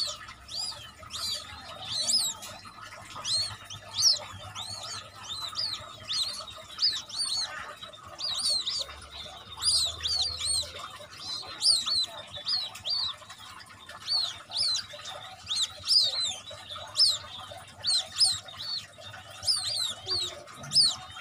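Hatchling birds, black downy white-breasted waterhen chicks with a quail chick among them, peeping without a break: short, high cheeps repeating several times a second.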